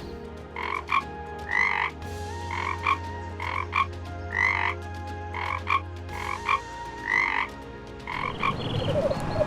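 An animal giving short, repeated calls, one to two a second, which stop about eight seconds in; a different rapid animal call begins near the end.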